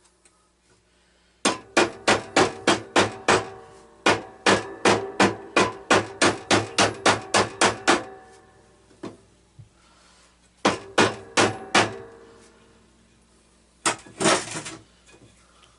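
Hammer blows ringing on metal in quick runs of about four strikes a second, with pauses between the runs, and a short dense clatter near the end.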